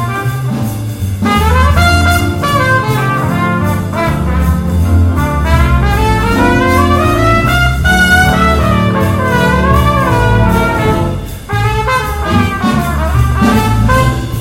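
A jazz big band playing, with a trumpet leading in front of saxophones, upright bass and piano. The band drops back briefly about eleven seconds in, then comes back in.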